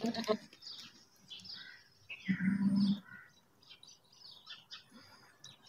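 A goat bleats once, a bit over two seconds in, a short call held at a steady pitch, with small birds chirping throughout.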